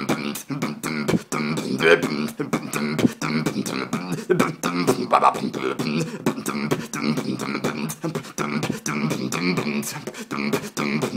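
Solo human beatbox: a fast, steady run of mouth-made drum sounds, kicks, clicks and snares, over a continuous hummed pitched line.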